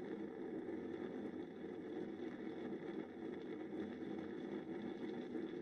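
A steady low rumble of wind and a bushfire burning across a grassy, wooded hillside.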